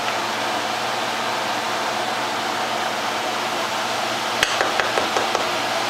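A spoon knocking a few times in quick succession against a cooking pot near the end, over a steady hiss.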